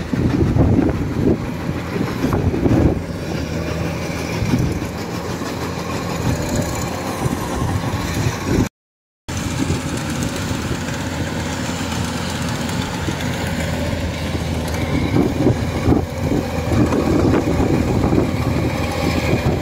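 Rice combine harvester running steadily as it harvests, a continuous engine drone. The sound drops out completely for about half a second around nine seconds in.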